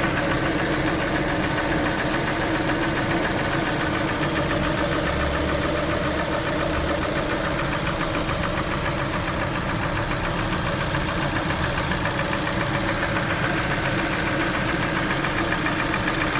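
Lada Vesta engine idling at operating temperature, with a knock from the engine that is present once it has warmed up.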